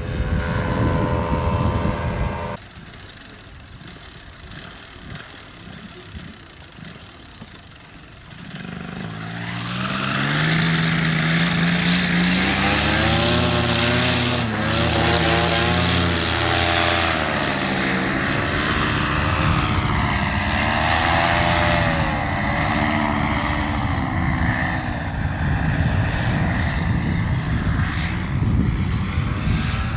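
Paramotor engine and propeller. It runs steadily and cuts off suddenly about two seconds in, leaving a few seconds of quieter noise. From about nine seconds in the engine builds up and runs loud to the end, its pitch wavering up and down.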